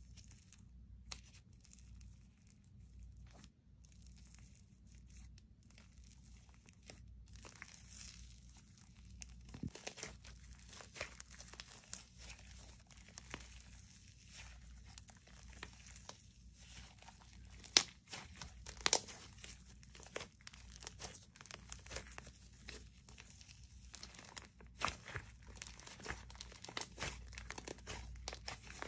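Green slush-type slime being stretched, folded and squeezed by hand, giving off sticky crackling, popping and tearing sounds. The crackles grow busier about a third of the way in, with two louder pops near the middle.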